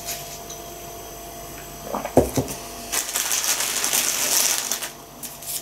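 A short knock about two seconds in, then about two seconds of crinkling plastic as a hand rummages in a bag of wrapped sweets.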